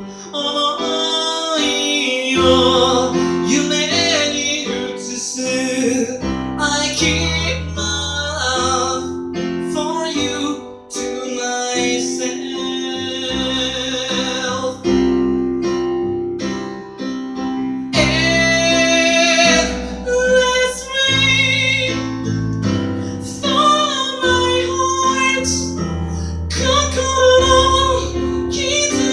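Music: a woman singing a slow song, with piano and guitar accompaniment.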